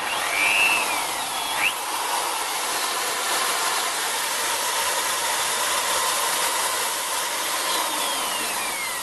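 Electric drill (a 500-watt AEG) switched on and spinning a thick grinding disc on an arbor mandrel with no load, a free-running test spin to check the disc for run-out. A whine rises as it spins up, it runs steadily, and near the end a falling whine as it begins to wind down.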